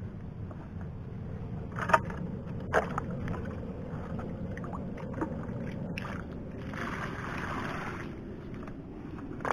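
Water sloshing as a plastic bucket is scooped through a muddy, water-filled hole, with two sharp knocks of the bucket early on. Then a rush of water for about a second as the bucket is tipped out.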